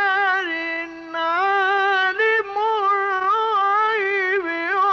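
Male Quran reciter's voice in the melodic mujawwad style, drawing out a word in long, ornamented melismatic notes that waver and step in pitch, with a short dip about a second in. It comes from an old 1958 reel-tape recording.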